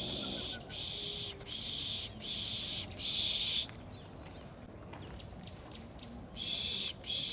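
Shrill, hissing insect buzz in a run of bursts, each about half a second long with short breaks between, stopping a little past halfway and coming back once near the end.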